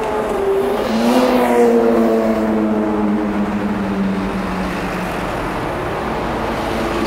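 A road vehicle's engine passing on a city street. Its note rises about a second in, then falls slowly as it goes by, over steady traffic noise.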